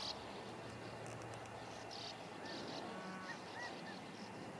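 Faint outdoor ambience with a few short, soft bird chirps about three seconds in. No shot is fired.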